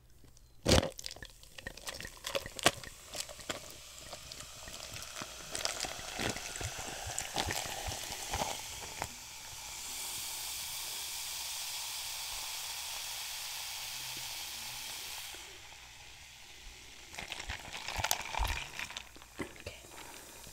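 Sparkling juice poured over ice into a cup, fizzing with a steady hiss through the middle. There are sharp clicks and knocks of handling near the start and again near the end.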